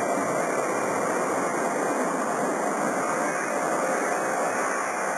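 Jet engine noise from a United Airlines McDonnell Douglas DC-10-20 trijet on the runway: a steady rushing sound that holds at one level.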